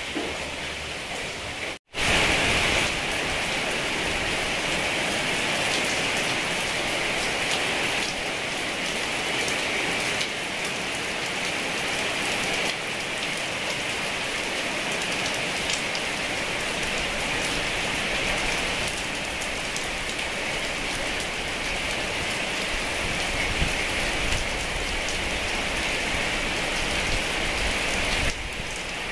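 Heavy rain pouring steadily as a dense, even hiss. The sound cuts out for an instant about two seconds in, then comes back a little louder and holds.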